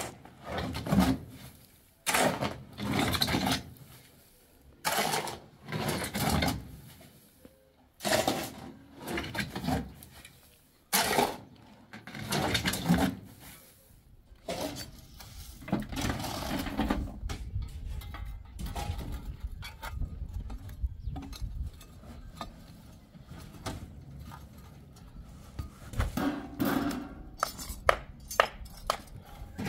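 Metal shovel scraping and scooping sand off a pickup truck's metal bed, in strokes about a second apart with short pauses between. Near the end comes a run of sharp metal clinks.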